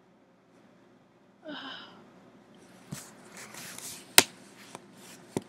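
A brief hum-like voice sound about a second and a half in. Then handling noise from the tablet that is recording: rustling with several sharp clicks and knocks, the loudest just after four seconds.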